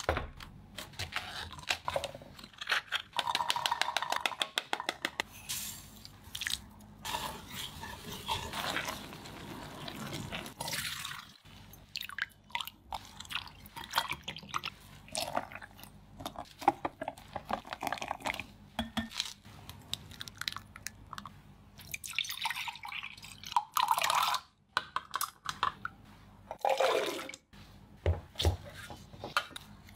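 Kitchen preparation sounds from making a pomegranate mousse: liquid pouring and dripping, and a whisk and utensils knocking against a glass bowl, in a run of separate short sounds with brief pauses.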